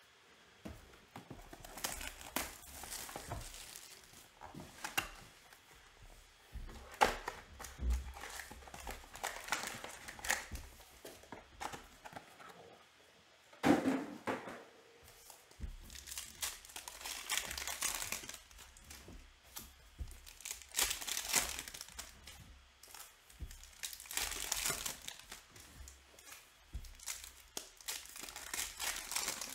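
Trading-card box and foil packs being opened by hand: wrappers crinkling, rustling and tearing in irregular bursts, with two sharper knocks, the louder one about halfway through.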